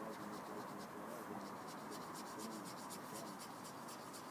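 Faint scratching of a small brush scrubbed back and forth over a coloured-pencil swatch on paper, about five short strokes a second, blending the pencil layer.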